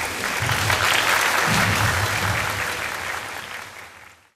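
Audience applauding in a large hall, swelling early on and fading out near the end, with a few low thuds underneath.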